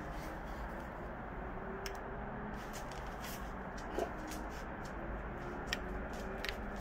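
A basset hound's paws and claws clicking and tapping here and there as he moves about, with a soft knock about four seconds in, over a steady low hiss.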